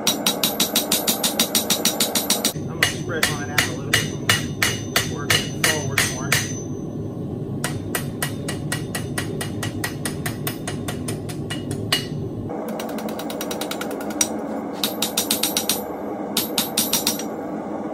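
Hammer striking hot metal on an anvil while forging, in fast runs of about five blows a second with short pauses between, some blows ringing. A steady rushing noise runs underneath.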